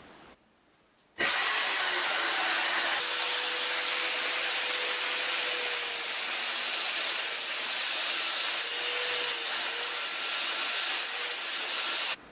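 Electric power tool motor running while it works material: a steady whine with a rasping hiss, its pitch dipping a few times under load. It starts abruptly about a second in and cuts off sharply near the end.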